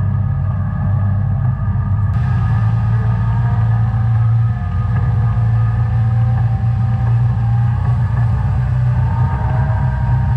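Combine harvester running steadily, heard from inside the cab: a heavy low engine drone with faint whines above it that slowly drift up and down in pitch.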